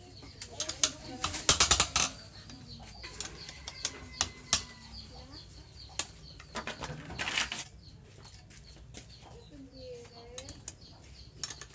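Hand tools and metal engine parts clinking and clattering as the engine is taken apart, in quick clusters of sharp taps near the start and again about seven seconds in.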